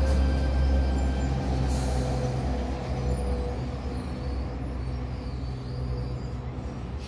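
Waratah double-deck electric train slowing to a stop at a platform. Its motor tones fade out about three seconds in, and a short hiss of air comes about two seconds in, over a low hum that slowly gets quieter.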